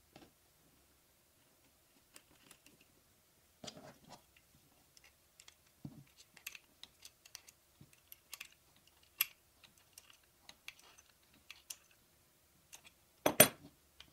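Scattered small metallic clicks and taps as a steel swivel caster bracket with a wooden block is handled and a small adjustable wrench works its bolt, with one louder metal clatter near the end.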